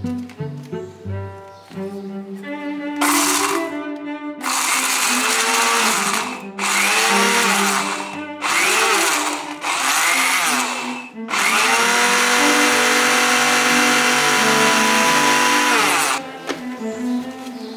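Small electric blender's grinder cup chopping garlic, red chili and shallot: five short pulses of one to two seconds each, starting about three seconds in, then one continuous run of about five seconds that stops shortly before the end. Background music plays underneath.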